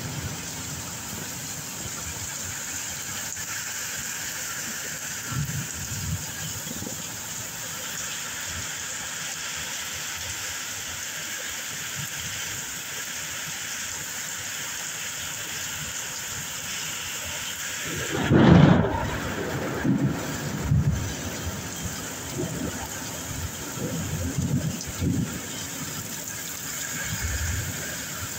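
Thunderstorm: steady rain hiss throughout, with a sudden loud peal of thunder about two-thirds of the way in, then several weaker low rumbles.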